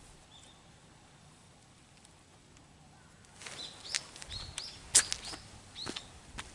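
A faint outdoor background, then from about three seconds in a run of short, high bird chirps, each a quick up-swinging note, with a few sharp clicks among them. The loudest click comes about two-thirds of the way through.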